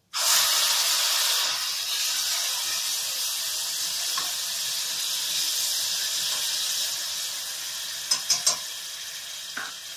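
Tomato puree sizzling hard as it hits hot ghee and spices in a steel kadhai, starting suddenly and easing off gradually. A few sharp clicks of a metal spoon against the pan near the end.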